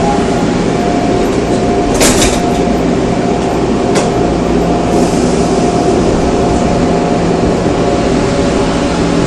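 Seoul Metro Line 3 old 3000-series GEC chopper-controlled electric train running, heard from inside the car. Its steady chopper whine sits over the rumble of the wheels, with two sharp clicks about two seconds apart.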